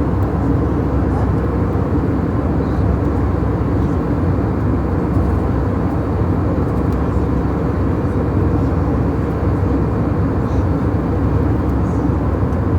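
Steady cabin noise inside an airliner: the even, low noise of the engines and air.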